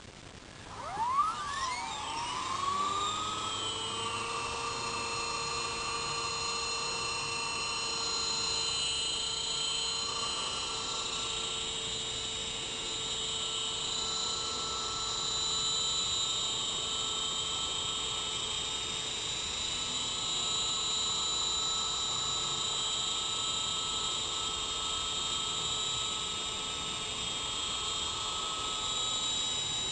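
Blade CP Pro electric RC helicopter spooling up: its motor and rotor whine rises in pitch over the first few seconds, then holds as a steady high-pitched whine.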